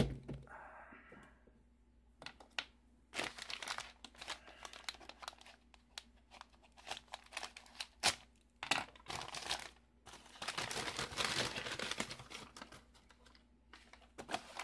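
Plastic packing bags crinkling and rustling as they are handled and opened to get at the tools inside, in irregular bursts, with a longer continuous stretch of crinkling about ten seconds in.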